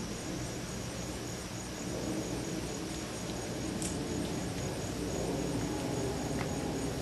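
Steady outdoor background noise with a faint, evenly repeating high chirp and a few soft clicks.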